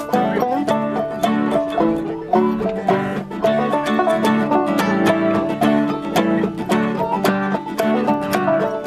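Acoustic string band playing a lively tune: guitars and ukulele strummed together in a quick, steady rhythm with plucked melody notes.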